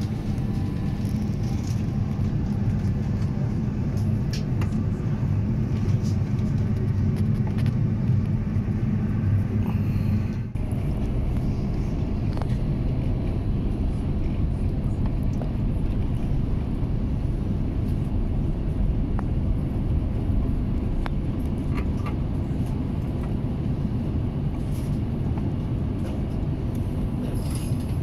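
Steady cabin noise of an Airbus A350-900 in descent, heard from a window seat: a low rumble of airflow and its Rolls-Royce Trent XWB engines. Until a brief dip about ten seconds in, a steady hum sits under the rumble; after that the rumble is more even.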